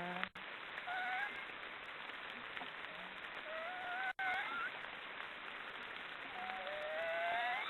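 Black stork chicks giving their 'snoring' calls: three drawn-out, wavering calls, about a second in, around the middle, and a longer one near the end, over a steady hiss.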